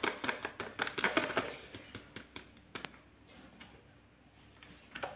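Chocolate drink powder shaken from a plastic sachet into a drinking glass: a quick run of small ticks and crinkles, then a few separate taps, dying away about three seconds in.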